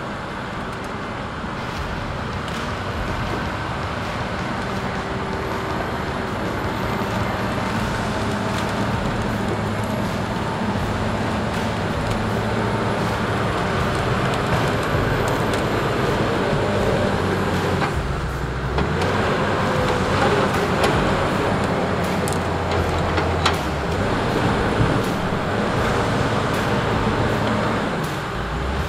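Diesel engines of a log loader and a grapple skidder working, growing louder as the skidder drives closer, with scattered knocks and clanks.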